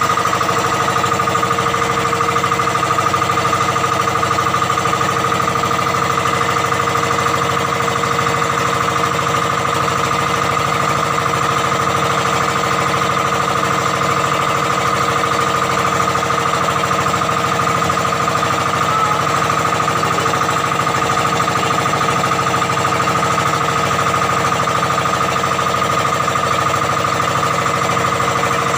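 Small engine of a motorized outrigger boat running steadily under way: an even drone with a steady high-pitched whine over it.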